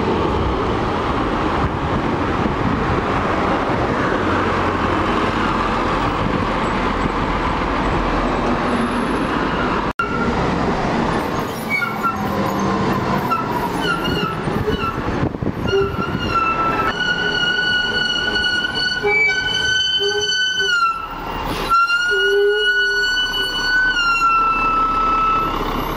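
Bus engines running as buses pass close by, with road traffic. In the second half, close to a double-decker bus, a steady high-pitched whine joins the engine sound and dips slightly in pitch twice near the end.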